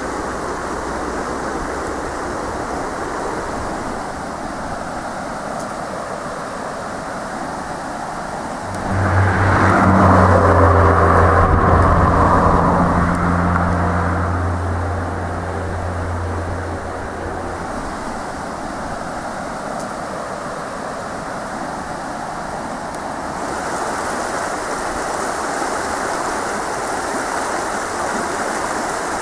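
Floodwater rushing down a swollen river channel, a steady noise of fast-moving water. About nine seconds in, a motor vehicle's engine hum rises over it, loudest for a few seconds and then fading away.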